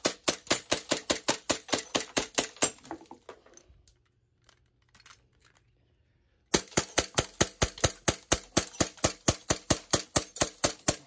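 Green-gas blowback airsoft Glock pistols fired in rapid semi-auto strings, about six shots a second. The first string weakens and stops about three seconds in as that pistol empties. After a short pause with a few faint clicks, a second pistol opens up with an equally fast string about six and a half seconds in.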